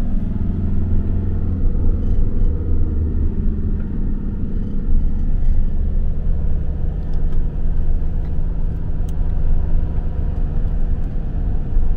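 Steady low rumble of a camper van's engine and road noise, heard from inside the cab while driving.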